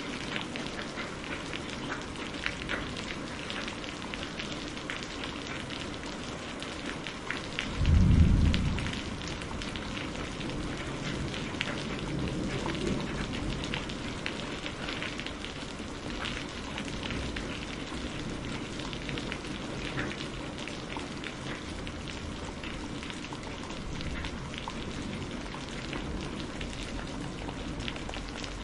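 Steady rain falling, with many fine drop ticks. About eight seconds in comes a short, low clap of thunder, the loudest moment.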